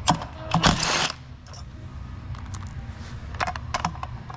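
Metal clinks and a short, loud metallic rattle about half a second in, then a few lighter clicks past the three-second mark: hand tools and metal parts handled while dismantling an ATV's rear drum brake.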